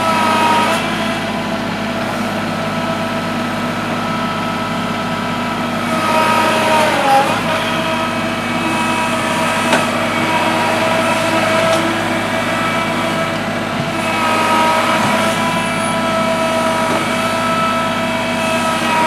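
Kubota L3301 HST tractor's three-cylinder diesel engine running under load with a steady whine as it strains to drag a heavy log through mud. The pitch dips and comes back up about seven seconds in, and the sound swells again around fourteen seconds.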